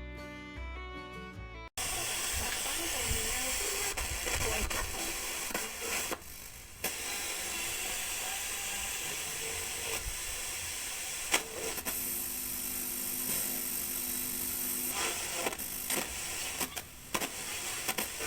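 Background music for under two seconds, then a small Sony Walkman radio receiver giving loud, steady static hiss with faint snatches of broadcast sound coming through, as it plays after repair.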